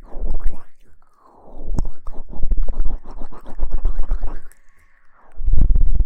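Close-miked scratching and rustling against the microphone in several bursts with short pauses, joined by a heavy low rumble near the end.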